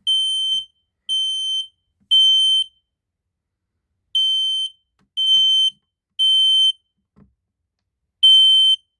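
Kidde P9050 smoke alarm sounding in self-test: a loud, piercing single-tone beep in the temporal-three pattern, three beeps about a second apart, a pause, three more, and a seventh starting the next round near the end.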